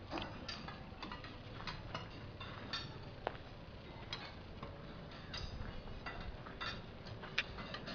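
Irregular sharp metallic clicks and clinks, about one or two a second, from steel screw jacks being worked under a house being lifted.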